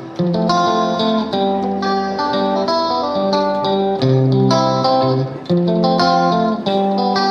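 Background music led by plucked guitar, with notes and chords changing about every half second.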